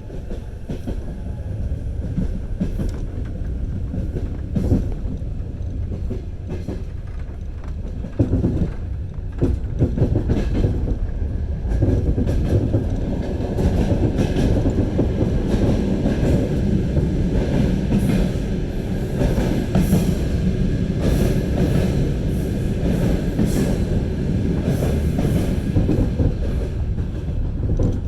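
Train wheels knocking over the rail joints: a continuous low rumble of the moving train, full of quick irregular clicks. It grows louder about eight seconds in and busier a few seconds after.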